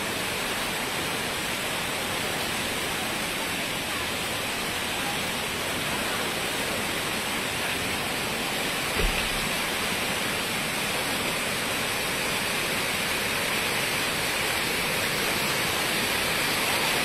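Steady rush of rainwater pouring and cascading in. A single brief thump about nine seconds in.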